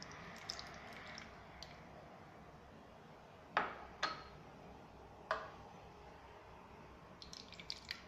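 Liquid poured from a cup into a small plastic container, trickling and dripping, then three sharp knocks of a cup and glass against the hard worktop. Near the end comes a second short pour from a small glass, with drips.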